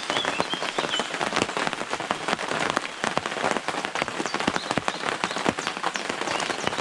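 Rain falling in woodland: a steady hiss of rain with many sharp individual drop hits close by.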